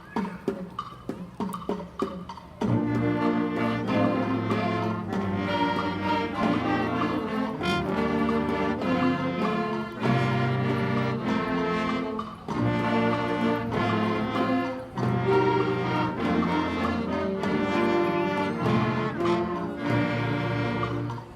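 Middle school concert band playing. Light, regular percussion taps open, then the full band comes in loudly about two and a half seconds in, with brass and low winds holding chords. The music breaks briefly between phrases a few times.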